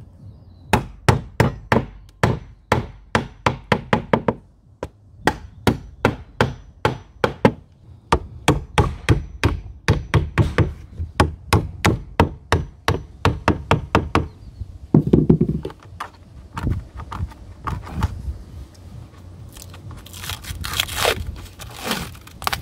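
Hammer driving nails into timber: runs of sharp, quick strikes, about two or three a second, that stop about two-thirds of the way through. A few scattered knocks and some rustling follow near the end.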